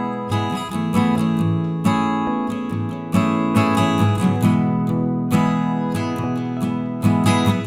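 Background music: acoustic guitar picking and strumming chords.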